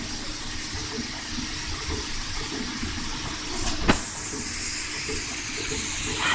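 ESKO Kongsberg X24 digital cutting table through-cutting printed vinyl with a Psaligraphy knife: a steady hiss with faint shifting motor tones as the cutting head moves, and one sharp click about four seconds in.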